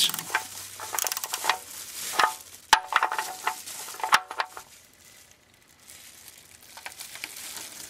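Ratchet wrench and socket clicking as the oil-pan drain plug is snugged down, in irregular clicks and metallic taps with one sharp click about midway; the clicking stops about five seconds in.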